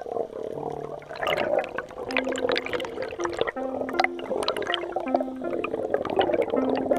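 Underwater water noise, rushing and bubbling with many sharp clicks and crackles. Short held low notes of background music run underneath.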